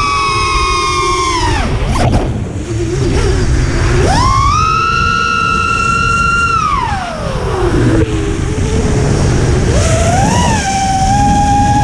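FPV quadcopter's brushless motors whining, the pitch rising and falling with the throttle. It drops away about two seconds in, climbs back up near four seconds, falls again around seven, and comes back at a lower steady pitch near the end. Wind rumbles on the onboard microphone throughout.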